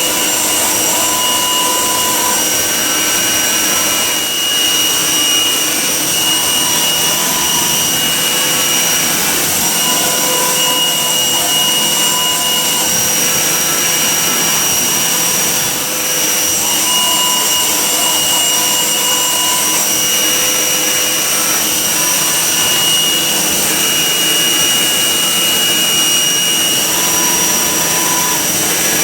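XYZ 1020 vertical machining centre running with a steady high whine, and a second, lower tone that comes in for a couple of seconds about every eight seconds.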